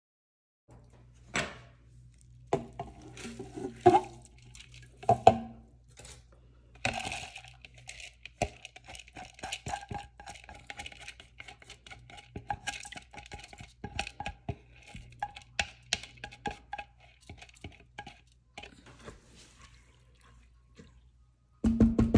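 Kitchen work: a run of clinks, taps and knocks of utensils against dishes and pans over a low steady hum. The loudest knocks come a few seconds in, and there is a louder clatter near the end.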